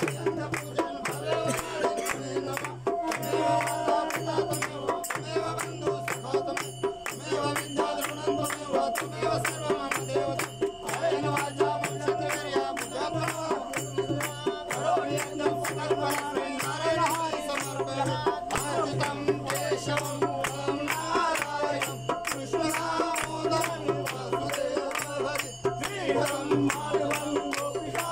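A group of people singing a Ganesh aarti together, kept in time by a fast, steady rhythm of hand clapping, over a steady low hum.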